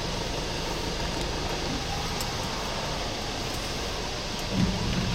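Steady rushing noise heard inside a vehicle during a severe storm, from the vehicle and the wind. A brief low sound comes near the end.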